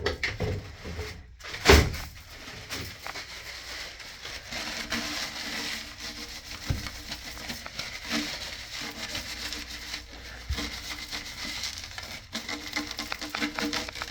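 Hands rubbing and wiping at the toilet tank's fittings, with scattered small clicks and scrapes and one sharper knock about two seconds in.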